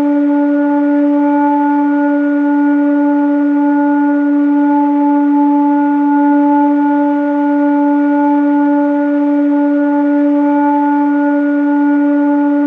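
Sustained sound-healing drone: one steady low tone with a stack of fainter overtones above it, held without a break.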